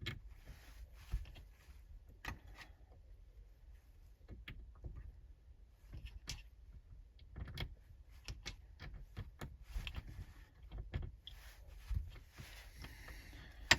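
Small metal clicks and taps, irregular and faint, from an Allen key and a metal mirror-mount adapter bracket being handled while a grub screw is tightened.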